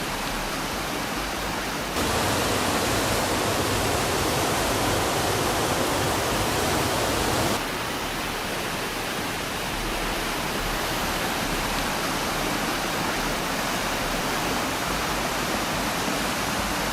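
Floodwater rushing through a street as a steady, dense roar of water. It grows louder about two seconds in and falls back a little past halfway.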